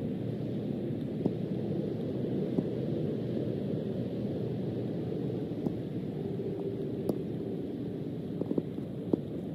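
Steady low outdoor rumble with no pitch to it, broken by a few faint ticks.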